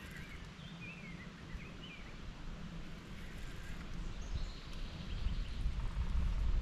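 A bird gives a few short chirps in the first two seconds over quiet outdoor background noise. A low rumble builds over the last couple of seconds.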